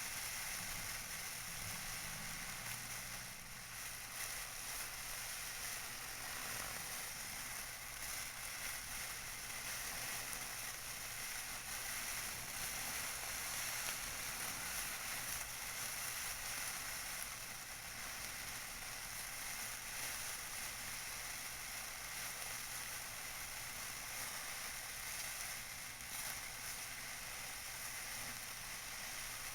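Tissue paper being crinkled and rustled by hand continuously, a dense, crackly, hissing texture close to the microphone.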